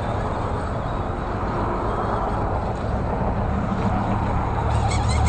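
Axial AX10 RC rock crawler's electric motor and geared drivetrain whirring steadily as it crawls over boulders, getting a little louder near the end.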